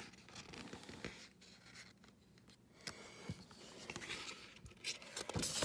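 Quiet at first, then soft paper rustling and sliding from about halfway through as a hand turns a picture-book page, a little louder near the end.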